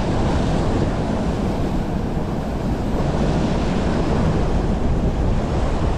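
Steady wind buffeting the microphone over the continuous rush of water at a spillway.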